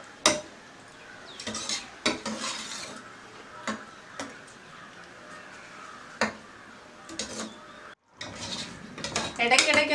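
Steel ladle stirring thick beef curry in an aluminium pressure cooker, clinking and scraping against the pot's sides several times at uneven intervals, over a faint simmering hiss from the curry cooking on a low flame.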